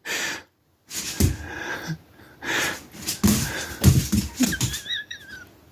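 Husky's heavy breathing, coming in short noisy bursts with gaps between, and a brief wavering whine near the end.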